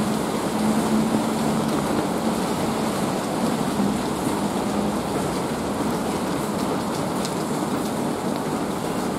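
Steady rain falling in a city, an even hiss at a constant level. A low steady hum runs under it for the first few seconds and fades out about halfway.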